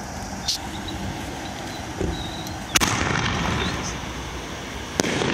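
Consumer aerial firework going off: a sharp bang just before three seconds in, trailing off in a rumble for about a second, then a second sharp crack about two seconds later.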